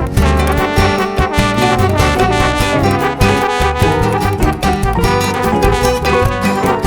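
Background music: an upbeat jazzy tune with brass and a steady beat.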